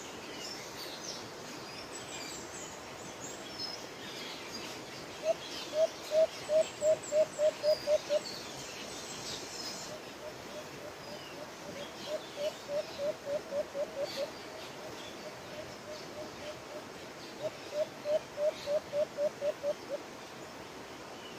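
White-eared brown dove calling in three runs of short, low coos, each run about ten notes at roughly four a second. Small birds chirp faintly and high in the background during the first half.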